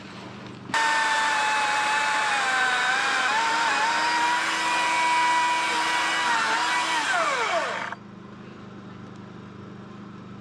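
Battery-powered electric chainsaw running as it cuts wood: a steady high motor whine that starts abruptly about a second in, dips slightly in pitch a few seconds in, then winds down in a falling whine near the end as the trigger is released.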